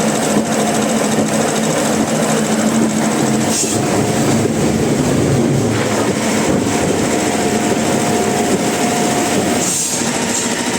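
Sawmill machinery running steadily, a loud even mechanical noise with a low hum underneath.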